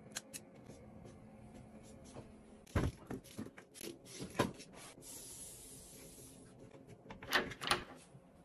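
Close-up handling noises: a handbag is set onto a closet shelf with several soft knocks and rubbing, then clothes hangers knock and slide along a rail near the end.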